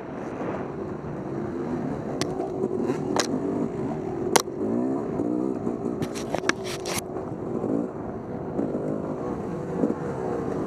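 Dirt bike engine revving up and down continuously as it is ridden off-road. Sharp knocks and clicks cut through it, the loudest about four seconds in and a quick run of them a couple of seconds later.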